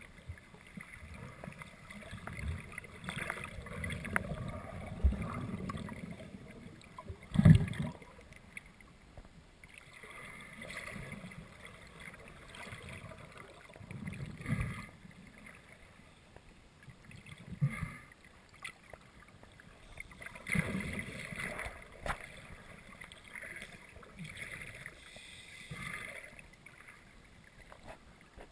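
Muffled underwater sound from a camera in its waterproof housing: water washing and moving around it, with irregular low knocks and thumps, the loudest about seven seconds in.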